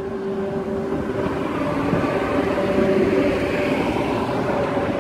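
Rhaetian Railway electric locomotive pulling a regional train away from the station and passing close by, with a few steady tones over the rumble of the wheels on the rails. It grows louder to a peak about three seconds in, then eases off.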